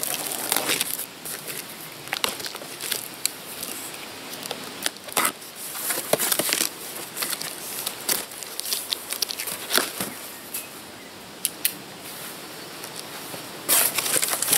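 A knife slitting the packing tape on a cardboard box: irregular scratches, ticks and tearing of tape. Near the end, a louder rustle as the cardboard flaps are pulled open.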